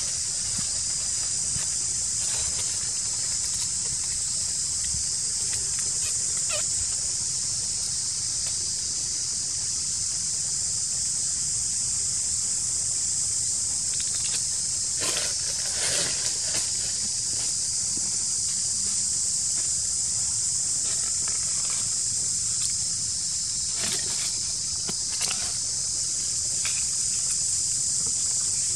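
Steady high-pitched drone of an insect chorus, with a few short rustles around the middle and again near the end.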